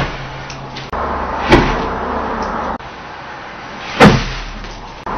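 Hand-thrown flash cartridges of nitrocellulose and magnesium powder going off: sudden loud bursts, one right at the start, another about a second and a half in and a third about four seconds in, each dying away quickly.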